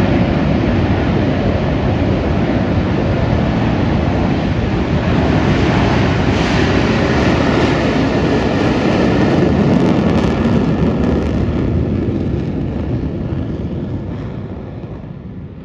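F/A-18 Hornet jet engines running loud for a formation takeoff, a steady roar with a thin whine that joins about six seconds in; the roar fades away over the last few seconds as the jets move off.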